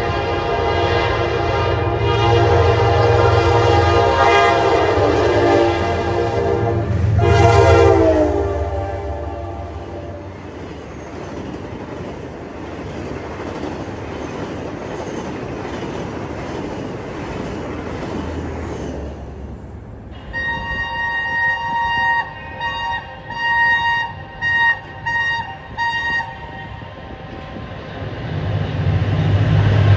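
Diesel locomotive sounding a long horn as it approaches, the horn's pitch dropping as it passes about seven seconds in, followed by train wheels rumbling over the rails. Later a horn gives a run of short blasts, and near the end a locomotive's engine rumble grows louder.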